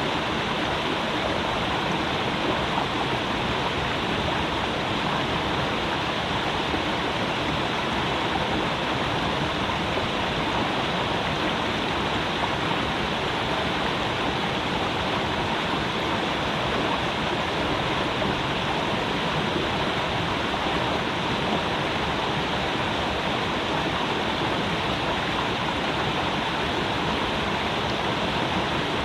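Creek water rushing and burbling steadily over rocks.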